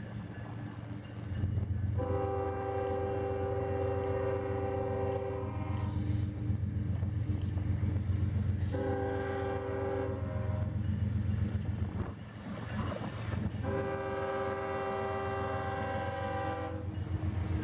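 CSX diesel freight locomotive's multi-chime air horn sounding three blasts (long, shorter, long) as the train approaches the road crossing. Under the horn, the diesel engines rumble steadily and grow louder as the train draws near.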